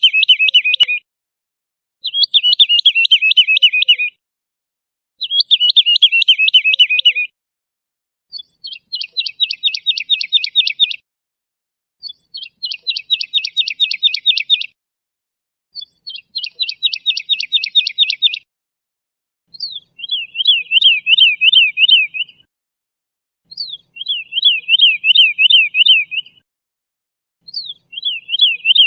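Woodlark singing in short phrases of two to three seconds, with pauses of about a second between them. Each phrase type comes three times: first a fast trill falling in pitch, then a rapid run of clicking notes, then a quick up-and-down warble.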